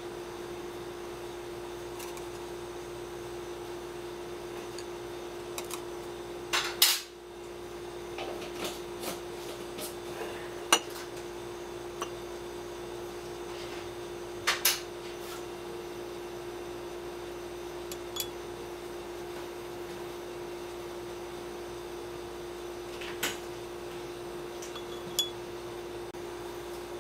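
Chopsticks clicking and tapping against small ceramic plates and a glass in scattered light clinks, the loudest cluster about seven seconds in. A steady hum runs underneath.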